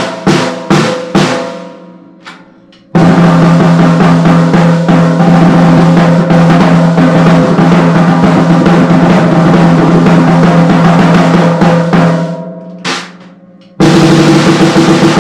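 Snare drum of a Yamaha DP kit on its stock, barely tuned heads with no dampening on it, struck a few times and then played in a long, fast, even roll. A single hit follows, and near the end a fast run on a higher-pitched drum starts.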